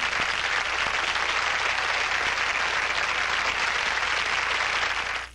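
Studio audience applauding steadily, cutting off sharply near the end.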